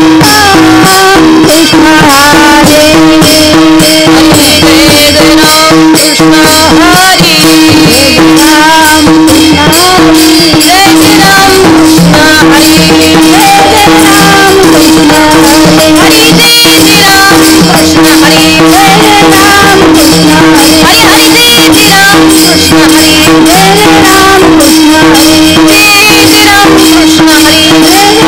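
Devotional kirtan singing in a woman's voice over a steady held drone note, with fast, even jingling percussion and a drum keeping the beat.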